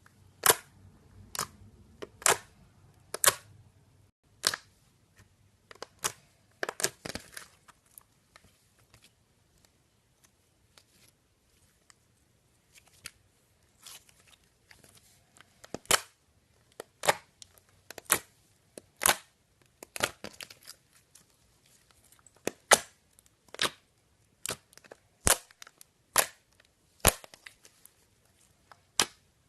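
Slime being pressed, folded and stretched by hand, giving off irregular sharp pops and snaps as trapped air bubbles burst. A few pops are loud, and they thin out for several seconds in the middle.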